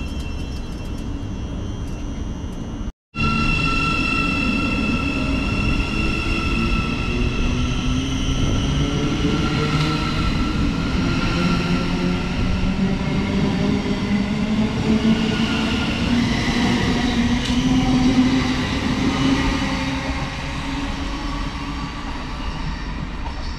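Thameslink Class 700 electric multiple unit pulling away from the platform. Its traction motors give a whine of several tones that climb steadily in pitch as it accelerates, over a low rumble. The sound drops out abruptly for a moment about three seconds in.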